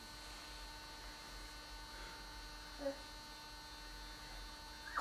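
Quiet room with a steady electrical hum made of several constant tones; a brief faint sound about three seconds in.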